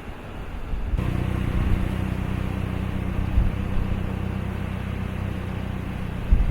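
A motor vehicle's engine running at a steady speed, coming in abruptly about a second in. Gusty wind rumbles on the microphone before it.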